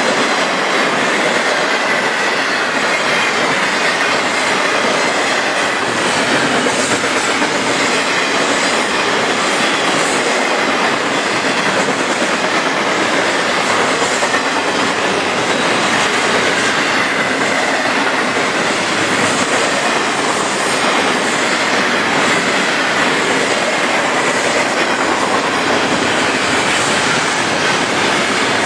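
Intermodal freight train cars, loaded with highway trailers and containers, rolling past at speed: a steady, loud rush of wheel and rail noise.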